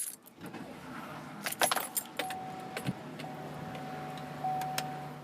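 Keys jangling with a few sharp clicks, then a car's engine running with a steady high warning tone sounding over it.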